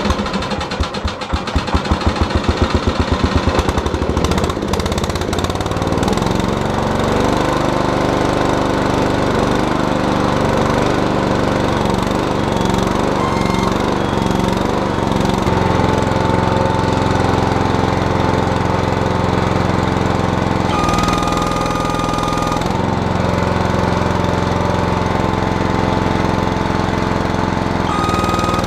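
Terramite backhoe's engine running with a fast, uneven beat for the first few seconds, then settling into steady running under hydraulic load. A steady high squeal comes from the hydraulics and jumps higher in pitch briefly about two-thirds of the way through and again near the end; the owner is unsure whether the squeal is the relief valve opening.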